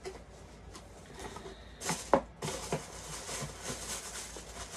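Handling noise from a shoe and its packaging: two sharp knocks about two seconds in, followed by rustling and small ticks.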